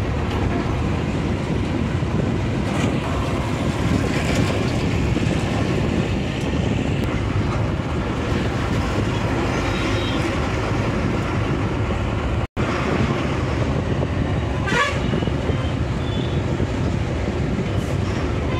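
Steady road and engine noise heard from inside a moving vehicle in traffic, with short horn toots from surrounding vehicles now and then. The sound cuts out for an instant about two-thirds of the way through.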